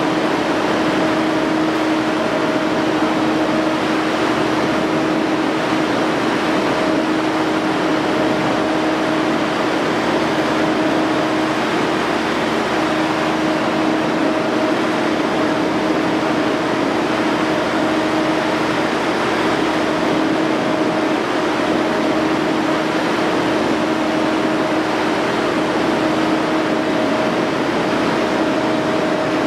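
Lovol 1006TANG six-cylinder gas engine of an 80 kVA biogas generator set running steadily under test, a constant drone with a steady hum through it.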